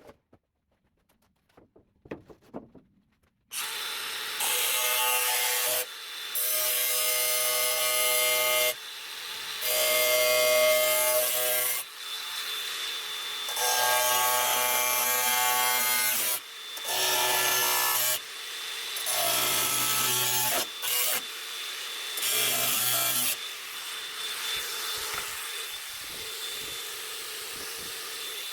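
Power tool working sheet steel, starting about three and a half seconds in and running in repeated passes of one to three seconds, each with a steady pitched note, broken by short dips.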